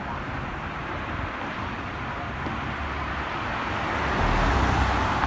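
Street traffic noise, a steady rushing of engines and tyres that grows louder with a deeper rumble about four seconds in as a vehicle draws near.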